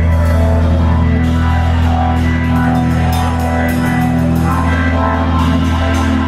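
Blues-rock band playing live: steady held low notes under the music, with cymbal strokes coming in from about a second in.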